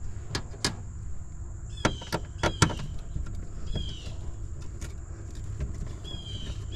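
Metal clicks and clinks from a nut driver working screws on the sheet-metal control panel of an air-conditioner package unit, sharpest in the first three seconds. Short high chirps falling in pitch recur in the background.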